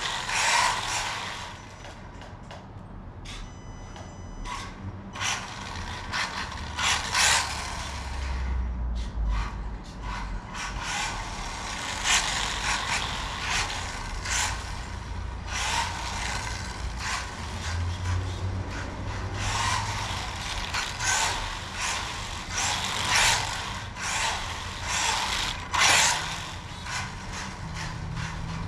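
Team Losi JRX2 electric RC buggy driven on a hardwood floor: its motor and gears whir in repeated spurts of throttle, with knocks and scrapes from the car.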